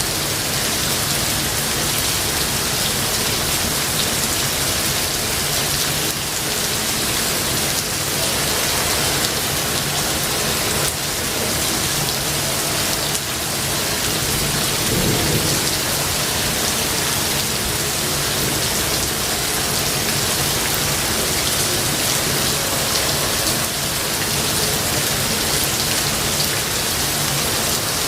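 Heavy, steady rain falling, with a low rumble of thunder about halfway through.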